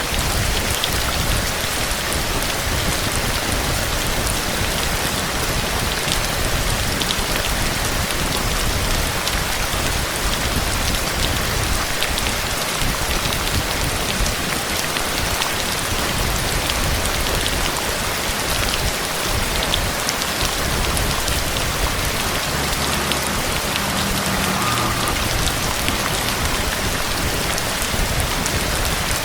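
Heavy storm rain falling steadily, with many fine drop hits through the constant rush.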